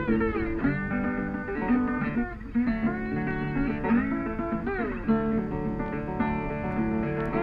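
Background music led by a plucked and strummed acoustic guitar, with notes that slide in pitch.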